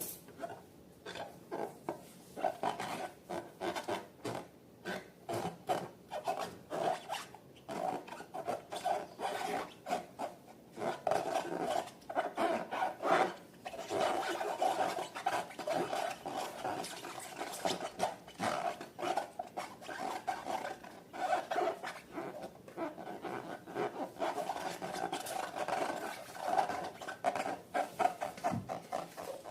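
Slime being mixed and worked by hand or with a tool: a continuous run of irregular sticky rubbing and clicking sounds, several a second.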